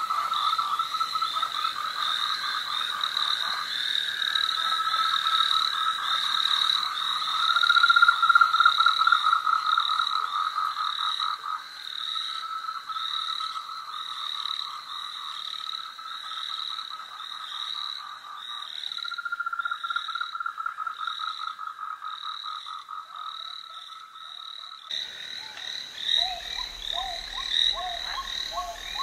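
A chorus of frogs calling: rapid trains of pulsed croaks, several callers overlapping. Near the end the chorus changes abruptly to shorter, lower chirping calls over a low hum.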